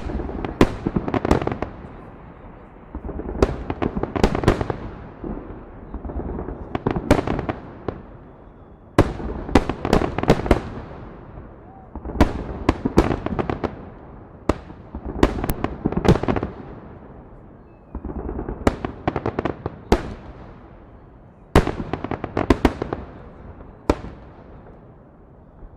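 Fireworks salute: volley after volley of aerial shells bursting, sharp bangs in quick clusters every couple of seconds, each cluster trailing off in a fading rumble.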